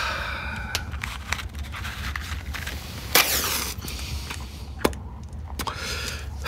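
Audio-drama sound effects: scattered sharp clicks and crackles over a steady low hum, with a brief rasping sound about three seconds in.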